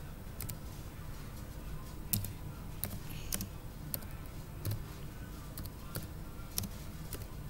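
Irregular light clicks and taps, about a dozen of them and the loudest a little past two seconds in, from fingers tapping and handling a handheld touchscreen device close to the microphone, over a steady low hum.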